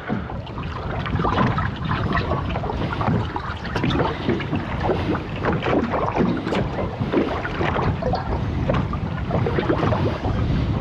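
Wind buffeting the microphone over the sound of sea water lapping and slapping irregularly against a drifting boat's hull.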